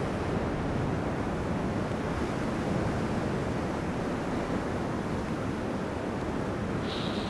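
Ocean surf and wind: a steady rushing wash of waves breaking below a coastal cliff.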